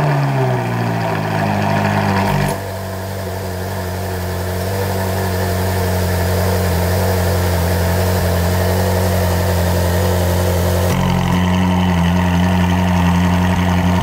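Ferrari 458's 4.5-litre naturally aspirated V8 just after start-up, its revs settling from the start-up flare within the first couple of seconds into a steady idle with the exhaust valves closed. About eleven seconds in, the exhaust valves are switched open by remote and the character of the idle changes.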